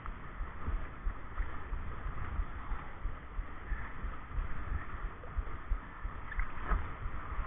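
Wind buffeting the microphone over a steady hiss of rushing river water while kayaking.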